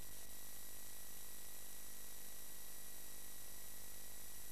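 Steady electrical hiss with a low hum and faint buzzing tones: noise on the audio line, with no sound from the program itself.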